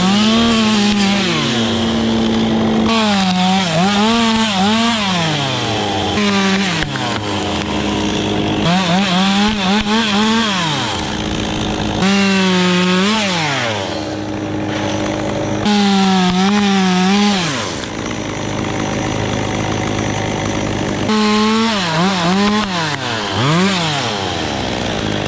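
Stihl chainsaw cutting fir, its engine pitch repeatedly rising and then dropping as it revs and bogs down in the wood. The sound jumps abruptly every few seconds.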